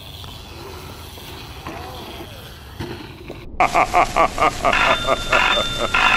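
Faint outdoor background, then after a sudden cut a telephone starts ringing: a quick run of rings about four a second that settles into a steadier ring.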